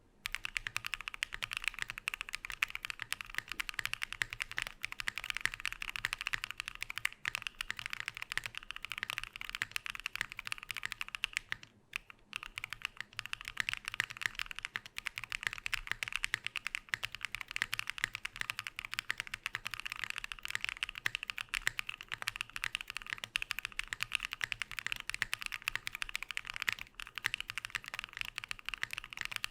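Frog Mini mechanical keyboard with a laminate plate, lubed switches and no foam being typed on fast, a dense run of keystroke clacks. The typing pauses briefly about twelve seconds in.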